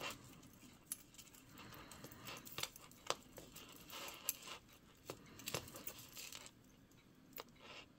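Faint small clinks and rattles of a fine gold-tone metal chain necklace being handled by hand while tangled, scattered irregularly.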